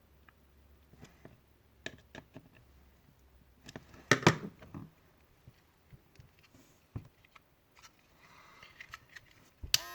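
Small clicks and taps of hands handling plastic hair-clipper parts and screws at close range, with a louder clatter about four seconds in and a sharp click at the very end.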